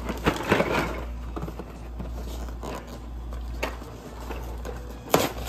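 Cardboard pasta box being handled and opened: scattered scrapes, rustles and clicks of cardboard, the sharpest about five seconds in, over a steady low hum.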